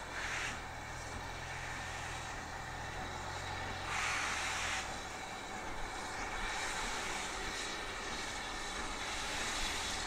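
Double-headed steam locomotives, led by BR Standard Class 4MT tank No. 80080, working slowly with cylinder drain cocks open. Steam hisses in bursts, the loudest about four seconds in, over a low steady hum that stops about halfway through.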